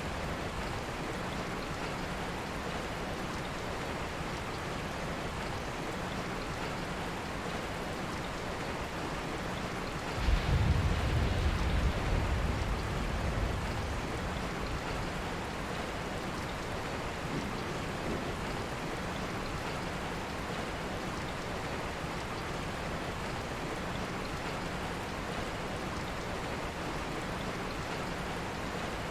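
Steady rain, falling evenly throughout. About ten seconds in a low rumble of thunder rises suddenly and fades away over a few seconds.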